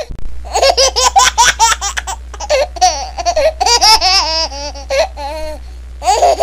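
A baby laughing hard: a quick run of short, rapid laughs, then longer high laughs that rise and fall in pitch, over a faint steady low hum.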